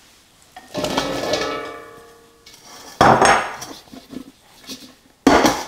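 Chopped root vegetables tipped into a large stainless steel stockpot, setting the pot ringing for a second or two, then two sharp knocks about two seconds apart as the bowl and the pot are set down on the counter.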